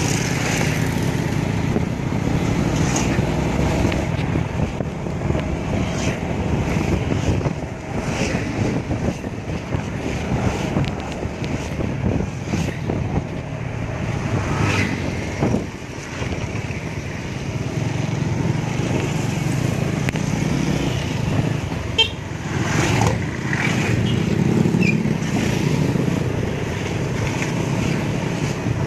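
Riding a motorcycle through town traffic: a steady rumble of the engine and wind, with other vehicles passing and occasional short horn toots.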